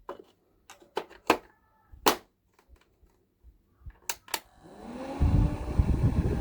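A handful of sharp clicks and knocks, then about four and a half seconds in a small battery-powered homemade fan's motor starts and spins up with a rising whine over a low rumble.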